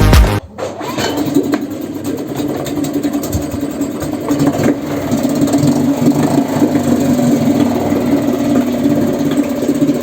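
Music cuts off about half a second in, giving way to a Suzuki 2.5 hp four-stroke single-cylinder outboard motor running steadily at idle with an even, unchanging note.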